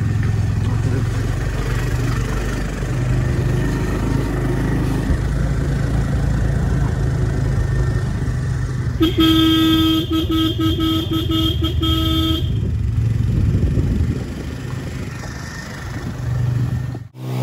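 Motor vehicle engine running steadily while moving. About halfway through, a horn sounds in a run of quick toots lasting about three seconds.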